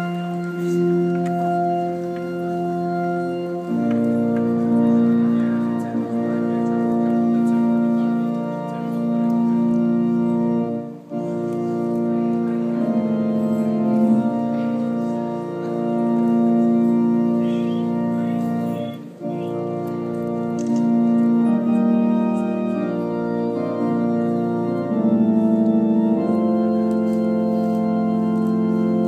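Organ playing slow, held chords that change every second or two, briefly breaking off twice along the way.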